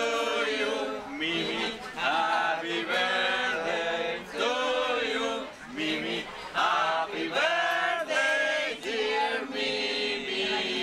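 Several men singing a birthday song together to a seated guest, unaccompanied, in held notes with short breaks between phrases.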